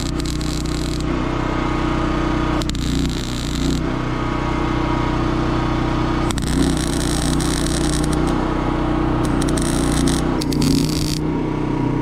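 Wire-feed (MIG) welding arc crackling and hissing on steel fence pipe in three runs, a short one at the start, another around three seconds in, and a long one of about five seconds from halfway through. Underneath, an engine runs with a steady drone.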